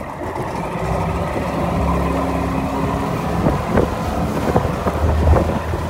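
Outboard motorboat engine running steadily, with wind on the microphone and a few short knocks in the last couple of seconds.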